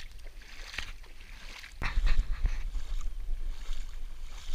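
Bare feet splashing, a few steps wading through ankle-deep water over sand. About two seconds in, louder wind buffeting the microphone takes over.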